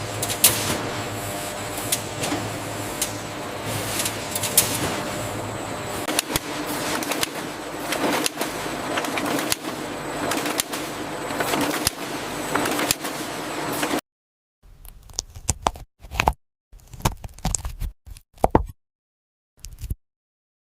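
Processing machinery running steadily with a low hum and frequent clattering knocks. About fourteen seconds in it cuts off abruptly, leaving near silence broken by scattered short clicks and clacks.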